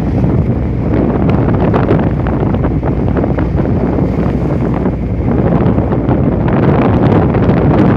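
Strong wind buffeting the microphone in a loud, steady rumble, mixed with the rush of rough sea in big waves.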